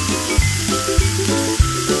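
Background music with a steady beat, about one thump every 0.6 seconds, over the sizzling of bean sprouts stir-frying in a hot pan.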